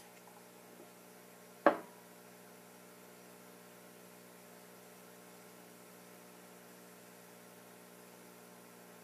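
Faint, steady electrical mains hum, with a single sharp knock a little under two seconds in.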